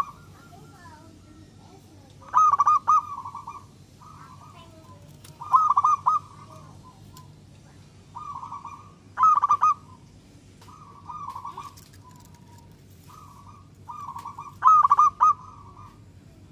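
Zebra dove cooing: four loud phrases of quick, rolling coo notes spaced a few seconds apart, with softer cooing phrases between them.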